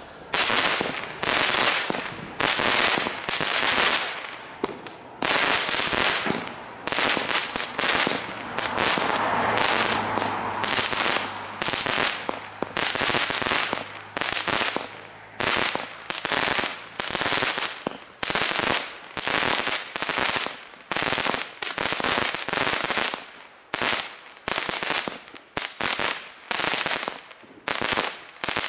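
Lesli 'Schnuffelhase' F2 consumer firework battery (80 g NEM) firing shot after shot, each a sharp pop with a hiss trailing off. There is a longer hissing stretch about halfway through, and the shots come faster, about two a second, near the end.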